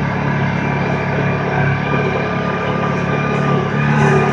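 Engine of a Kawasaki Teryx 800 side-by-side, a 783 cc V-twin, running at a steady speed.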